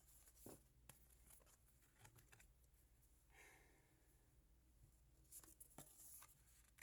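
Faint handling of cardboard oracle cards: soft sliding rubs and a few light taps as cards are moved.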